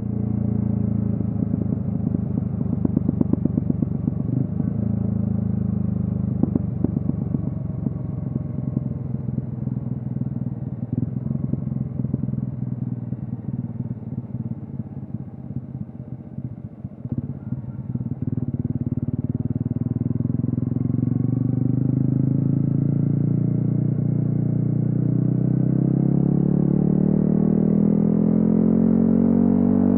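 Yamaha XSR155's single-cylinder engine through a DIY exhaust, ridden on the road. For the first half it runs at lower revs with an uneven, crackling exhaust note; from a little past halfway it pulls harder and the revs climb steadily.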